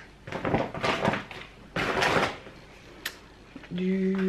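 Rustling of plastic shopping bags and packaging in two bursts as groceries are pulled out, then a sharp click. Near the end comes a woman's steady hummed "mmm", about a second long.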